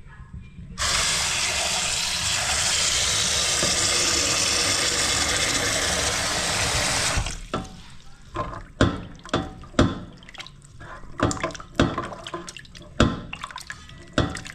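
Kitchen tap running into a pot for about six seconds, then shut off. It is followed by a string of short knocks and small splashes as raw beef is washed by hand in the water.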